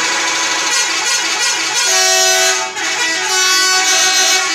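Bus telolet horn playing a loud multi-note tune, several horn tones sounding together. The notes shift to a new chord about two seconds in and again after a brief drop near three seconds.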